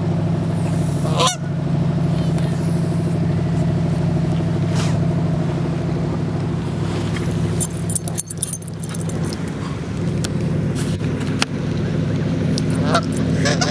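Canada geese honking now and then over a steady low hum.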